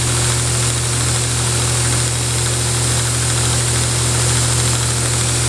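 Grizzly belt grinder/buffer running with a steady motor hum and belt hiss as a steel broadhead is sharpened against its worn-out 220-grit belt.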